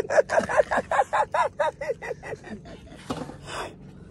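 A man laughing in a quick run of short 'ha' bursts, several a second, that trails off about two and a half seconds in, followed by a brief breathy noise.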